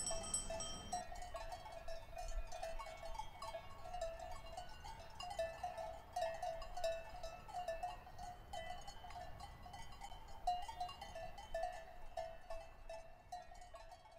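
Bells on grazing livestock ringing irregularly, several faint clanks a second, fading a little near the end.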